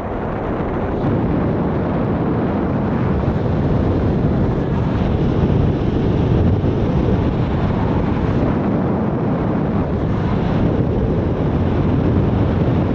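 Wind rushing over the microphone of a camera on a paraglider in flight: a loud, steady buffeting rumble that swells a little now and then.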